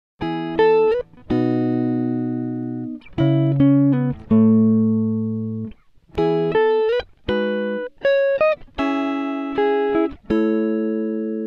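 Background music: a plucked guitar plays a slow melody of single notes and chords, each struck sharply and left to ring out and fade.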